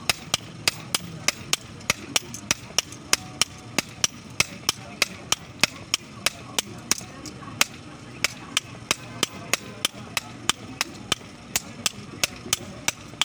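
Hammer striking iron while a pot is being shaped, in an even rhythm of about three to four sharp, ringing blows a second.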